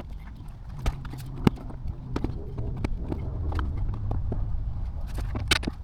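Toyota Aygo engine idling with a low, steady rumble while it warms up, with irregular sharp clicks and knocks over it, the loudest about a second and a half in and a quick cluster near the end.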